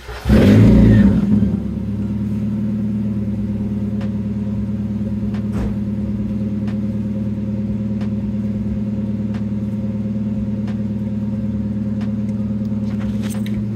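1990 Mazda Miata's 1.6-litre inline-four starting on a makeshift straight pipe, its stock exhaust having broken off. It catches with a loud flare lasting about a second, then settles into a steady, raspy idle.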